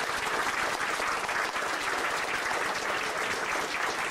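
An audience applauding, many people clapping steadily.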